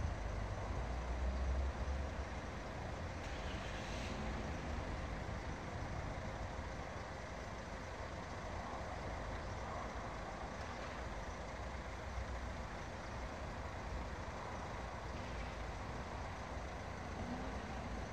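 Steady outdoor background noise like road traffic, with a heavier low rumble during the first two seconds.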